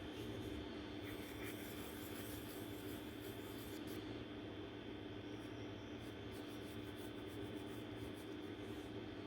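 Faint scratching of drawing strokes on a drawing surface, busiest in the first few seconds, over a steady low hum.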